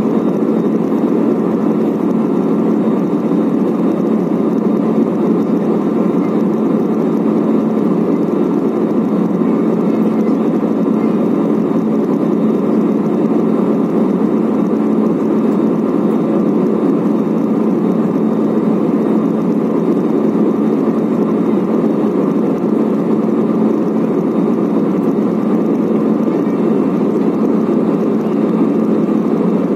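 Steady roar of jet engines and airflow inside the cabin of a Citilink Airbus A320 in flight, an even rushing noise with a constant low hum running through it.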